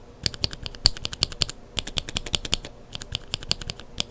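Rapid typing on lubed linear mechanical keyboard switches with Kailh Burgundy stems: quick runs of sharp clacks, several per second, broken by brief pauses.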